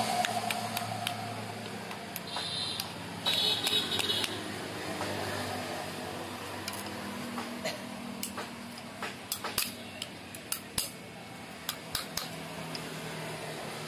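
Light, irregular hammer taps on a steel sickle held on a small anvil block, with a cluster of sharper strikes in the second half. Faint voices in the background.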